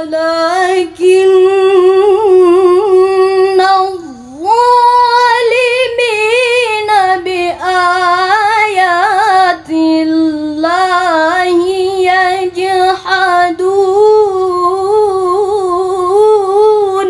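A teenage girl's voice reciting the Quran in the melodic tilawah style, into a microphone: long held notes with wavering ornaments. The pitch dips sharply about four seconds in.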